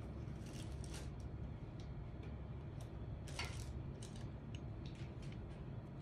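Light clicks and knocks of hands handling a silver metal Colt M1911A1 airsoft pistol, scattered and irregular, the most distinct about three and a half seconds in, over a steady low hum.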